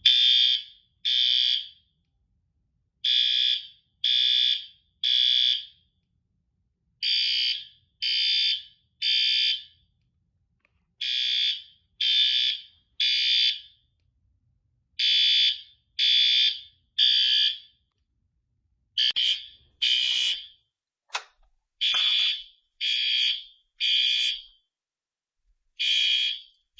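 Commercial fire alarm system in alarm, sounding a high-pitched tone in groups of three short blasts with a pause between each group: the temporal-three evacuation pattern, set off by the manual pull station during a test. After about 19 s the groups come less evenly, with a few clicks among them.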